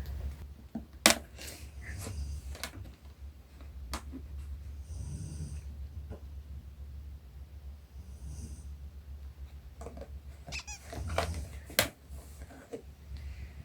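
A man snoring in deep sleep, a wheezy breath with a high hiss about every three to four seconds, with a squeaky whistle about ten seconds in. A few sharp clicks and knocks fall in between.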